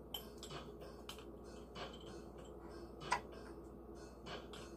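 A spoon lightly clicking and tapping against dishes while sugar is spooned in: scattered soft clicks, with one sharper click about three seconds in.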